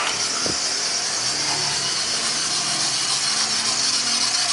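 Volkswagen Saveiro engine running just after starting, with a steady high hissing belt noise. The mechanic puts the noise down to a misaligned automatic timing-belt tensioner.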